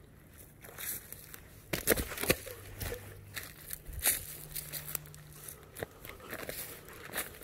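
Footsteps crunching through dry fallen leaves and twigs on a woodland floor, an irregular run of crunches and crackles, loudest about two seconds in.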